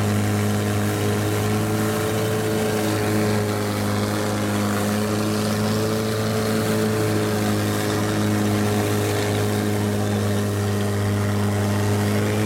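Long-tail boat's engine running steadily at cruising speed, a constant hum with a steady hiss over it.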